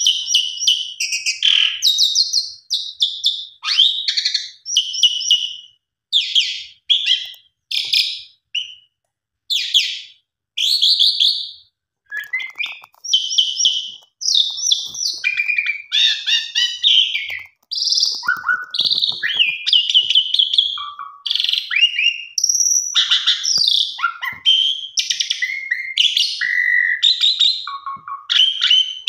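Asian pied starling (jalak suren) singing a long, varied song: fast chattering runs and whistled phrases, broken by a few short pauses.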